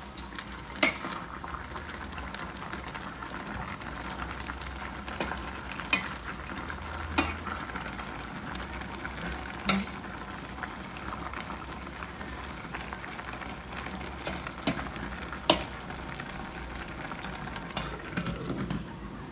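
Food cooking on a gas stove, a steady sizzle and bubble from a pot of vegetables and a frying pan, broken by about seven sharp clinks of a metal spoon and lid against the stainless steel pot as it is stirred.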